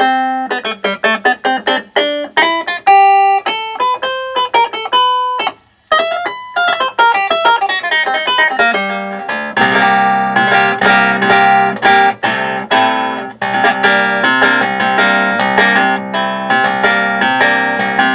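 Hohner Clavinet played: short, plucked-sounding single notes and runs, a brief stop about six seconds in, then denser rhythmic chords through the second half. Its hammer tips have been freshly trimmed and coated with Teflon to quiet the key click.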